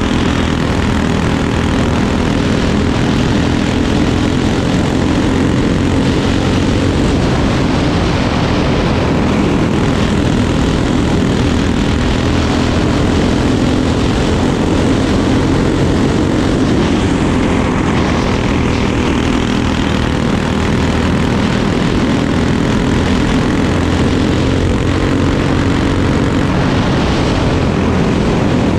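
Crate-class racing kart engine running hard at racing speed, heard from on board, its pitch wavering a little up and down through the turns of the dirt oval.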